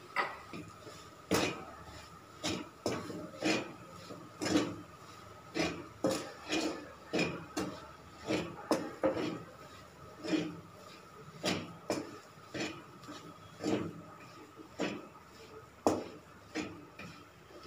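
Wooden spatula knocking and scraping against a metal kadhai while stirring and mashing a thick potato and soya mixture, in irregular strokes about one to two a second.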